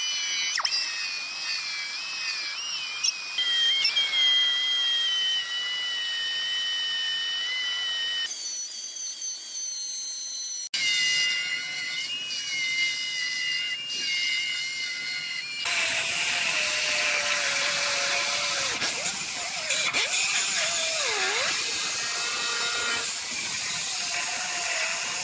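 High-speed power tool whining as it cuts into a steel vehicle frame crossmember. The pitch shifts and dips under load, and there are several abrupt jump cuts between stretches of cutting.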